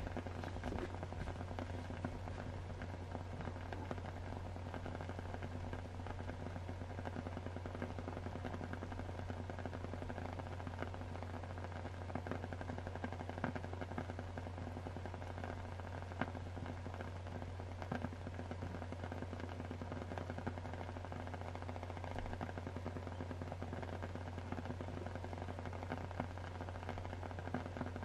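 Steady rain ambience with a low hum underneath and scattered sharp crackling pops throughout.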